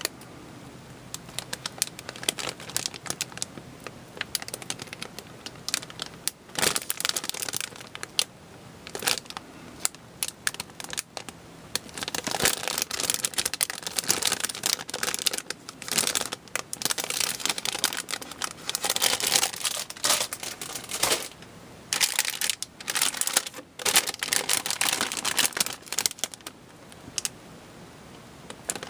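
Clear plastic bags crinkling as plastic model-kit runners sealed inside them are handled, with sharp clicks and taps of the plastic frames. Scattered clicks at first, then long stretches of dense crinkling from about halfway in.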